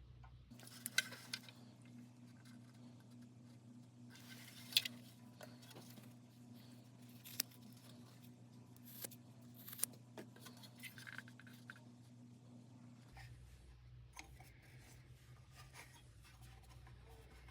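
Faint scattered scrapes, rustles and clicks of parts being handled by hand, over a low steady hum.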